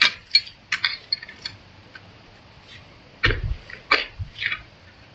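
Hoe chopping into soil among dry bamboo leaves while digging for bamboo whip shoots: a string of sharp strikes and crunches, with the heaviest thud about three seconds in.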